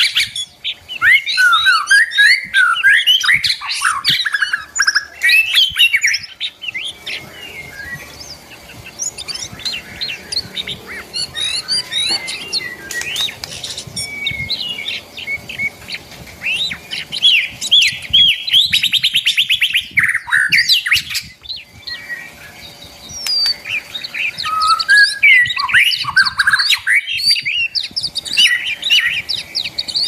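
Several songbirds in an aviary singing and chirping together, busy overlapping calls and whistles that come in bursts with quieter spells between, including a fast trill about two-thirds of the way through.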